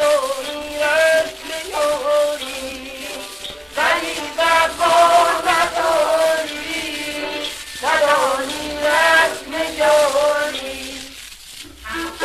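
A 1944 shellac 78 rpm record of a Persian song playing: a male singer sings long ornamented phrases over instrumental accompaniment, each phrase opening with a rising slide, about every four seconds. Near the end the voice drops away and the accompaniment takes up a line of short repeated notes.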